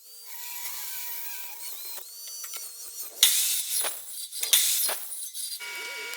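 Metalworking noise from fitting the 1/8-inch steel sheet panels, with two loud, harsh bursts about three and four and a half seconds in.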